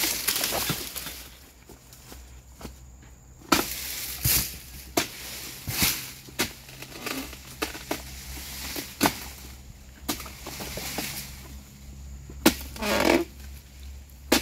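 Oil palm harvesting chisel (dodos) on a long pole striking and cutting into palm frond bases: a series of sharp chops at irregular spacing, about one a second, with rustling of fronds between some strikes.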